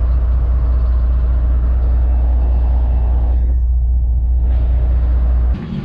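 Boat's Detroit Series 60 diesel engine running steadily under way, a loud, even low drone that cuts off abruptly near the end.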